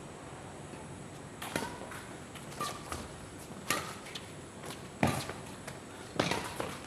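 Badminton rally: rackets strike the shuttlecock with sharp cracks, about one hit a second, five or six in a row after a quiet start.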